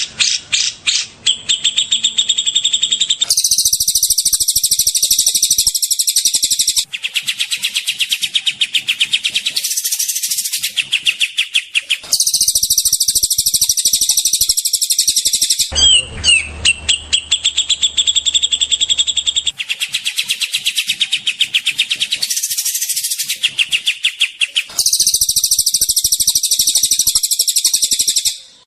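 Songbird masteran recording: fast trills of many short, high repeated notes, the 'tembakan' (shot) phrases used to tutor magpie-robins. It is spliced from several takes that cut in and out abruptly every few seconds.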